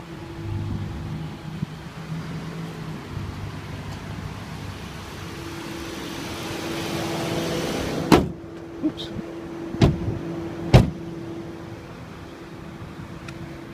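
Ford Crown Victoria's 4.6-litre V8 idling with a steady hum, its noise growing louder toward the middle as the open engine bay comes close. Three sharp knocks a little past the middle.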